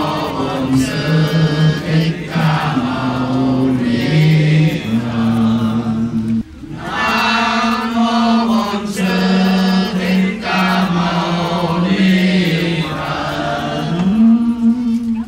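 A group of voices chanting a Vietnamese Buddhist liturgy in unison: slow held notes that step up and down in pitch, with a short break for breath about six and a half seconds in.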